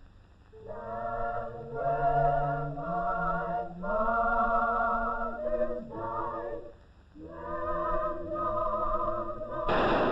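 Choir singing a slow hymn in long held phrases with vibrato, pausing briefly between phrases. Near the end, a single sharp crack: a rifle volley fired by the honor guard over the flag-draped coffins.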